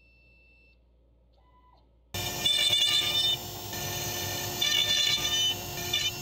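Faint electronic beeps, then about two seconds in a CNC router spindle is suddenly loud, running at a steady pitch while the end mill cuts into wood, with a high cutting sound that rises and falls twice.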